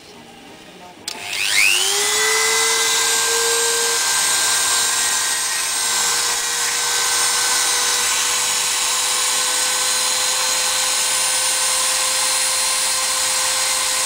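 Dremel rotary tool starting about a second in, its motor whine rising and then settling to a steady pitch, and running steadily while grinding a small homemade lockpick into shape.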